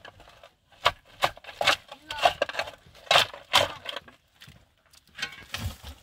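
A long-handled digging tool striking and scraping stony, dry earth: about six sharp blows in the first four seconds, then a few softer scrapes near the end.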